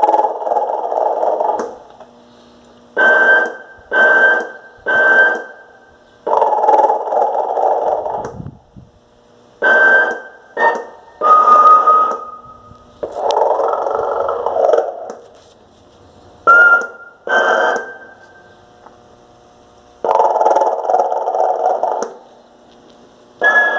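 Snoring Santa Claus toy doll going through its snore cycle: a rasping snore of about two seconds, then two or three short whistling puffs, repeated over and over.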